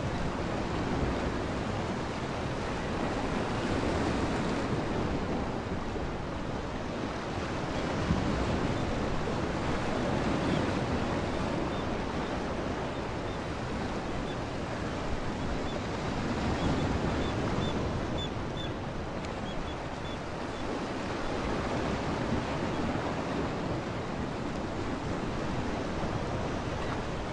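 Steady rushing wash of water and wind noise with slow swells in loudness, with a few faint high chirps about two-thirds of the way through.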